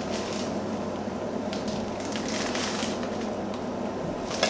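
Plastic instant-noodle wrappers crinkling in short bursts as dry noodle blocks are pulled out of their packets, with a sharp knock near the end and a low steady hum underneath.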